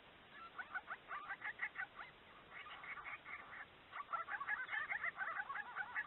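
A group of babblers chattering: many short, rapid calls overlapping, growing busier about two-thirds of the way in.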